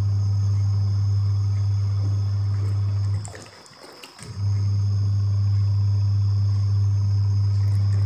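Twin-tub washing machine's wash motor running with a steady low hum. It stops about three seconds in and starts again a second later, as the wash tub's pulsator pauses and reverses during the wash cycle.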